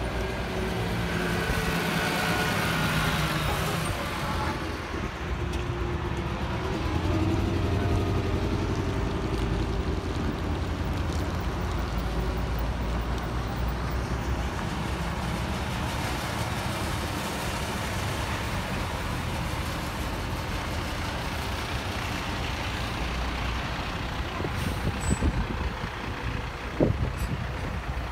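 Heavy diesel fire trucks and other emergency vehicles driving slowly past in a procession, their engines running with a low rumble that swells as each one goes by. There are a few sharp clicks near the end.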